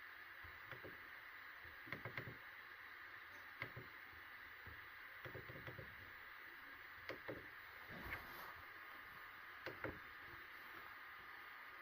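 Faint steady hiss with scattered soft clicks and knocks every second or two.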